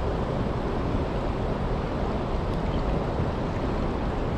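Steady rushing noise of wind and moving water around a kayak on the river, heaviest in the low end and unbroken throughout.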